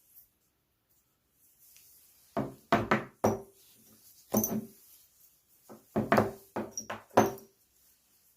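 Hard objects being handled and set down: two clusters of short knocks and clacks, each lasting about a second, a few seconds apart.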